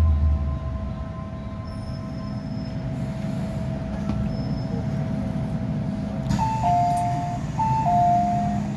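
MTR M-Train carriage running, a steady rumble of wheels and running gear with a thin steady whine. About six seconds in, a two-note falling chime sounds twice: the on-board chime that comes ahead of the station announcement.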